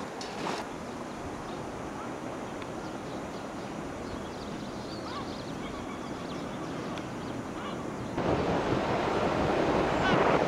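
Steady outdoor background noise with faint bird calls, then a sudden switch about eight seconds in to louder rushing noise of surf and wind.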